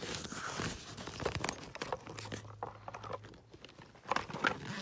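Packing material rustling and crinkling as it is pulled out of the pockets of a new bag, with scattered small clicks and knocks from the bag.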